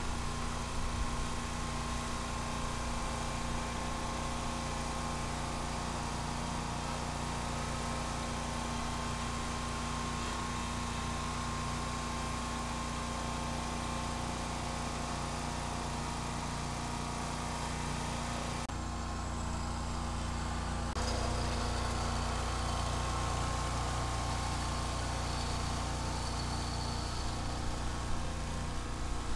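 An engine running steadily at idle with an even hum. The sound changes briefly about two-thirds of the way through, and the low rumble is a little heavier after that.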